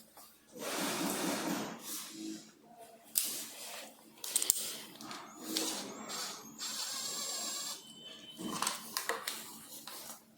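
Hands working on parts and tools: a string of clicks, knocks and rustling, with a steady whirring stretch of about a second and a half past the middle.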